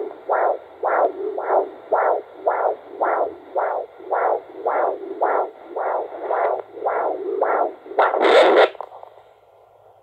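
Huntleigh Dopplex handheld fetal Doppler speaker playing a heartbeat as rhythmic whooshing pulses, just under two a second. About eight seconds in, the probe scrapes loudly and the beat gives way to a low hiss.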